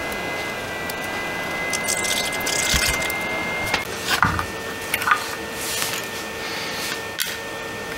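Steady hissing rush, as from a small blower, with a thin high whine and a few light clicks and taps.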